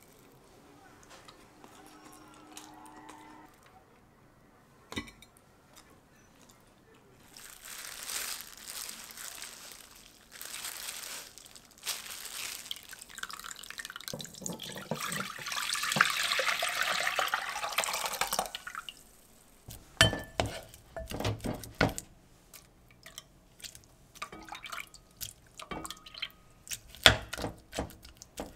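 Water sloshing and dripping as a gloved hand squeezes soaked malt in a rice-cooker pot of water, the malt-squeezing step of making sikhye. From about two-thirds of the way in, a wooden spoon knocks and scrapes repeatedly in a pot, mashing cooked kabocha squash.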